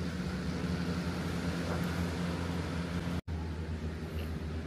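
Steady drone of a long-tail boat engine, a low hum with a faint hiss over it, cutting out for a split second about three seconds in.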